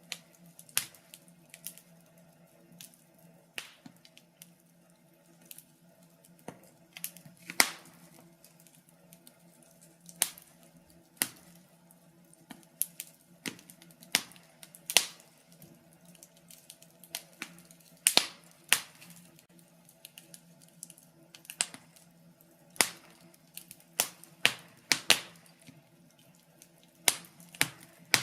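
Wood fire crackling in a fireplace: irregular sharp pops and snaps at uneven gaps, a few of them much louder, over a faint steady low hum.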